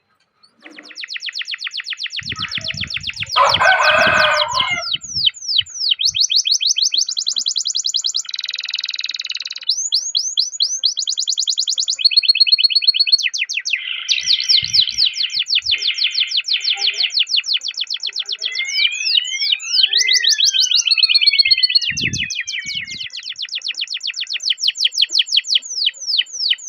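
Domestic canary singing a long rolling song: fast trills of rapidly repeated high notes that switch to a new phrase every second or two, with a run of falling sweeping notes a little past the middle.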